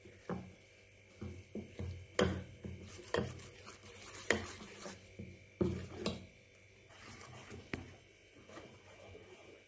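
Steel spoon stirring thick idli batter with chopped onion and coriander in a stainless steel bowl: irregular metal-on-metal clinks and scrapes, with several sharper knocks in the middle.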